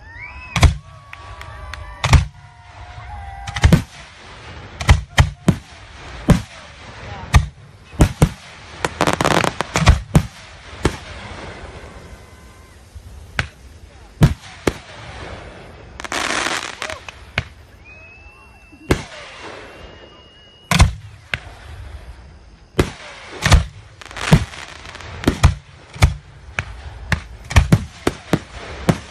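Aerial fireworks shells bursting in a rapid run of sharp bangs, roughly one every second. There are two stretches of crackling, around 9 and 16 seconds in, and a high steady whistle for a couple of seconds past the middle.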